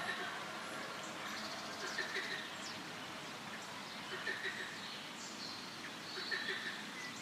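Forest ambience: small birds chirping in short, repeated calls every second or two over a steady background hiss.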